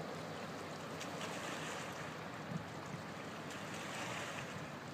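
Steady wind on the microphone and river water lapping at a stony bank, with a low drone from a passing boat's engine.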